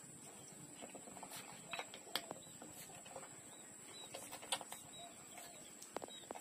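Puppies suckling at their mother's teats: faint, irregular wet smacking and clicking of sucking mouths, a few clicks a second at most, with small soft vocal sounds among them.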